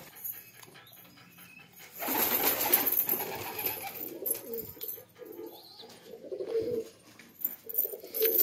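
Domestic pigeons cooing in a loft, with low, repeated coos through the second half. A loud rustling burst comes about two seconds in.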